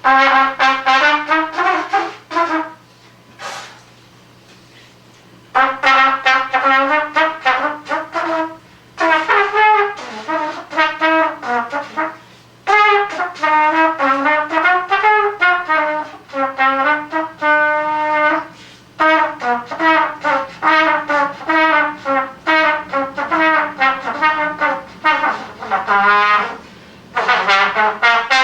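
Unaccompanied brass instrument, trumpet-like, playing solo jazz improvisation: phrases of quick runs of notes with bends in pitch, separated by short pauses, with a longer pause about three seconds in. A faint steady low hum sits underneath.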